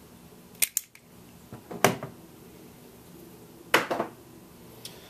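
Scattered sharp clicks and knocks, about five of them, from parts or tools being handled during work on the hoses, the loudest about four seconds in.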